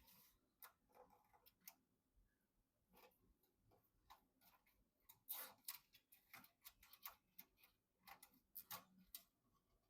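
Faint, irregular small clicks and taps of computer hardware being handled during assembly, busiest about halfway through and again near the end.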